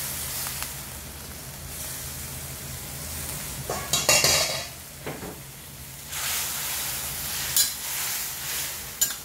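Cut cabbage tipped from a metal colander into a hot steel wok of sizzling sauce and broth, then stirred with a metal spatula scraping the wok. A cluster of sharp metal clinks comes about four seconds in, with single clinks near the end.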